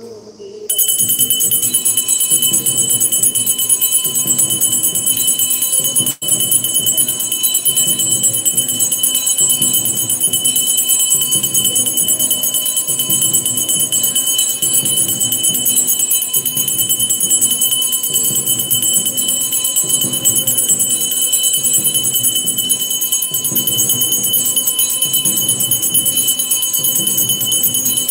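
Temple aarti bells ringing without a break, several high ringing tones held steady, over a low beat repeating a little more than once a second; it starts abruptly about a second in.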